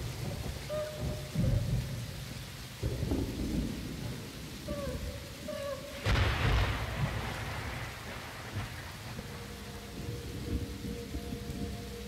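Dark ambient music built on thunderstorm sounds: rumbling thunder and rain noise in swells, with a sudden louder crash about six seconds in. A few short wavering tones sound in the middle, and a steady drone of held tones comes in about three seconds before the end.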